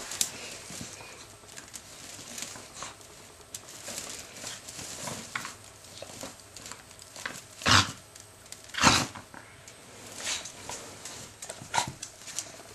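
Jack Russell terriers moving about in a wicker dog basket and on a hard floor: scattered small rustles and taps, with two short loud noises a little past the middle.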